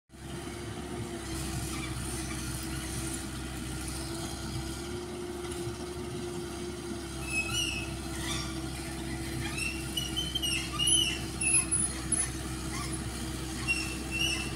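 Komatsu PC78UU-6 mini excavator working, its diesel engine and hydraulics running with a steady hum. From about halfway on, short high squeals come from the machine as the arm and bucket work the soil.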